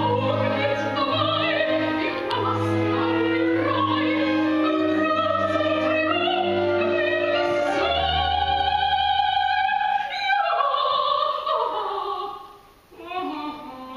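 A woman singing opera with a wide vibrato over held accompanying notes. About ten seconds in the accompaniment stops and her voice carries on alone, sliding down in pitch, with a brief drop in loudness near the end.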